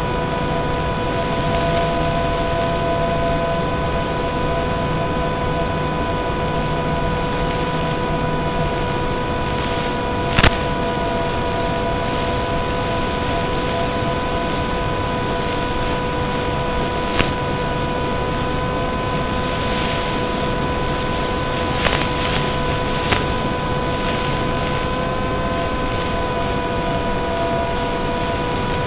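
Steady electronic hiss with several constant whining tones and a few sharp clicks, the loudest about ten seconds in. This is noise on the FPV video link's audio channel as captured by the DVR, not the plane's motor.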